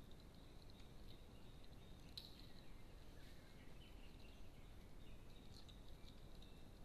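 Near silence: faint steady outdoor background hiss with a few faint high chirps, the clearest about two seconds in.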